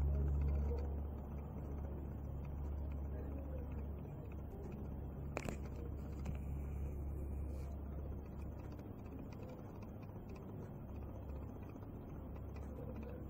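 Steady low hum of running aquarium equipment under a faint hiss. It eases a little about a second in, and a single sharp click comes about five seconds in.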